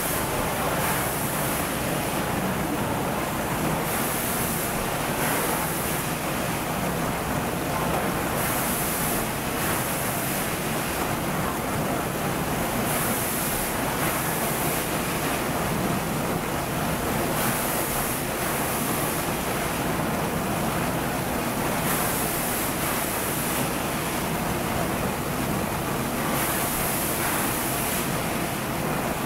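Automatic shrink-sleeve labeling machine running with empty PET bottles on its conveyor: a steady, loud rushing mechanical noise. A sharper hiss swells and fades in pairs every four to five seconds.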